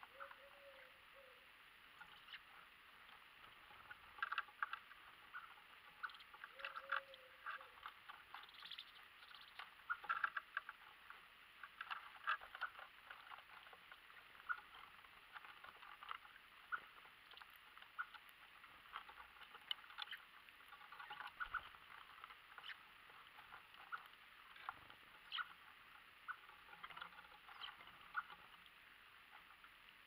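Small birds pecking and shuffling through seed on a wooden platform feeder: faint, irregular taps and scratches, coming in small flurries.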